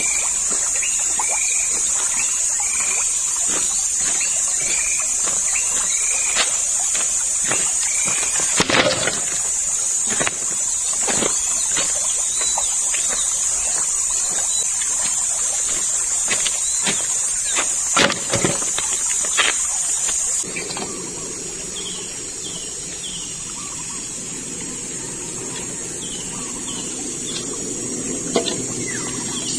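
Steady high-pitched drone of insects such as crickets or cicadas, with short falling chirps repeated about once a second and a few sharp knocks. About two-thirds in the sound cuts: the insect drone turns fainter and the steady rush of the flowing river comes up beneath it.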